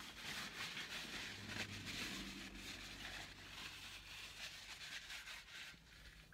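Paper napkin rustling and rubbing as it wipes a mouth and hands, a dense crackly hiss that stops shortly before the end, with a brief low hum about a second in.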